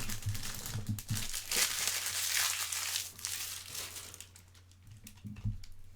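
Foil trading-card pack wrapper crinkling as it is handled, loudest in the first half and dying away after about three seconds, followed by a few light taps.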